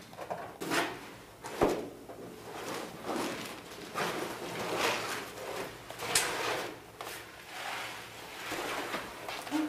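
Rustling and scraping of someone moving about and handling a canvas, with two sharp knocks, about a second and a half in and again about six seconds in.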